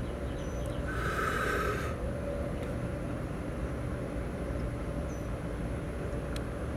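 Steady low background rumble, with a brief higher-pitched sound lasting just under a second about a second in.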